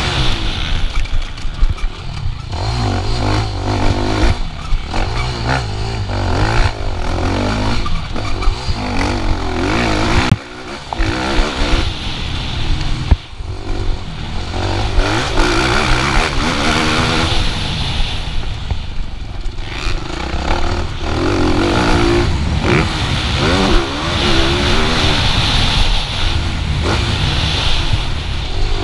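Motocross bike engine revving hard and easing off again and again as it races around the track, its pitch climbing and falling. There are brief throttle cuts about ten and thirteen seconds in.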